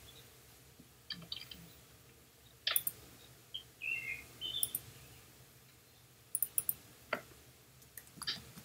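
Scattered quiet clicks of a computer mouse and keys, a dozen or so at uneven intervals, with two short high chirping sounds near the middle.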